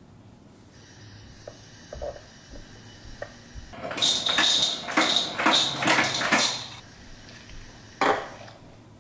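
Ice cubes clattering into a glass for a couple of seconds from about four seconds in, then the glass set down on the countertop with one sharp knock near the end.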